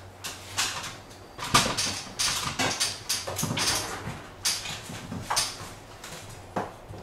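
Irregular scuffs, rustles and knocks of a person moving about and getting onto an aluminium stepladder, with the loudest knock about a second and a half in.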